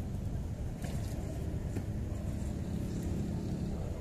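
A steady low rumble with a faint hum, as from a running engine, with a couple of faint small clicks.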